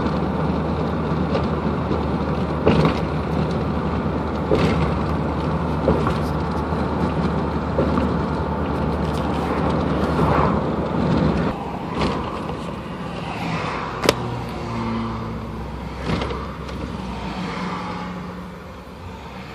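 Chevrolet Silverado pickup with Flowmaster 50 Series exhaust, heard from inside the cab, cruising at low engine speed with a steady drone and road noise. About halfway through it eases off and coasts down, the drone fading as the truck slows toward a stop. There is a sharp click about two thirds of the way in.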